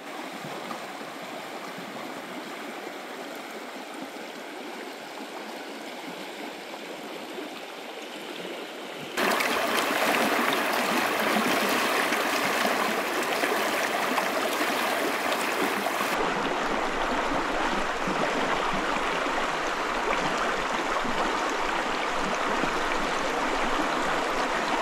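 Small clear creek flowing over rocks, a steady babbling rush of water. It gets louder and fuller about nine seconds in, and turns a little duller about sixteen seconds in.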